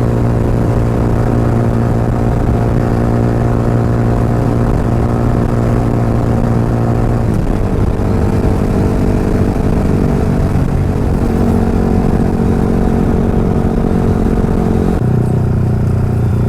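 Yamaha R15's single-cylinder engine running through an Akrapovic aftermarket exhaust while riding at highway speed. The engine note holds steady, then changes abruptly about halfway through and again near the end.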